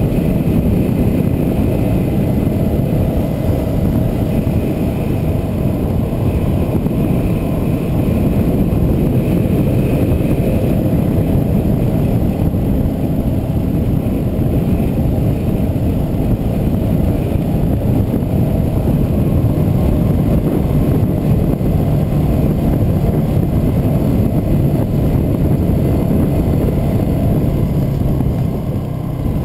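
Yamaha WR250R's single-cylinder engine running steadily under way, mixed with road and wind rush.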